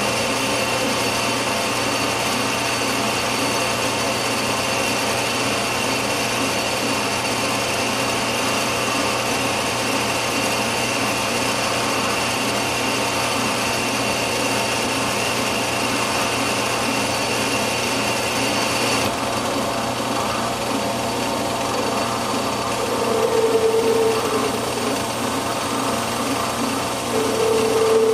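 Metal lathe running with its gearing whining steadily as it turns a steel stud during a light finishing cut. The higher whine drops away about two-thirds of the way through, and two short squeals come near the end.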